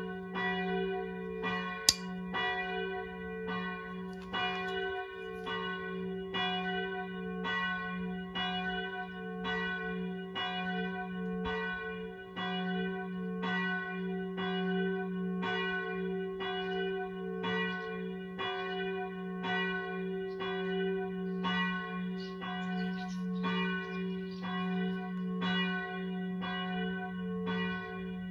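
A bell struck at a steady beat, a little over once a second, each stroke ringing on over a low hum that never stops. A single sharp click about two seconds in.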